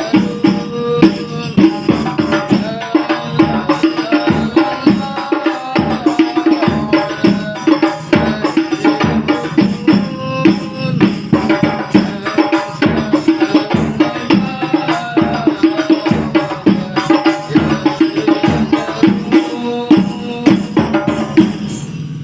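Rebana frame-drum ensemble playing a fast, busy interlocking rhythm, with voices chanting a devotional song over the drums.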